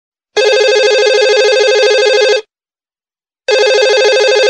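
Telephone ringing with a trilling bell tone: a ring of about two seconds, a pause of about a second, then a second ring.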